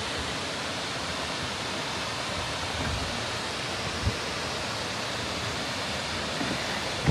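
Waterfall rushing, a steady even roar of falling water, with one soft low thump about four seconds in.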